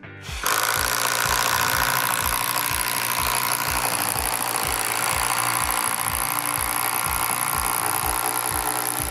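Kobalt 24V brushless cordless impact driver boring a 1-inch spade bit into lumber: the motor runs hard and steadily under load, its impact mechanism hammering the whole time. It starts about half a second in and keeps going without letting up.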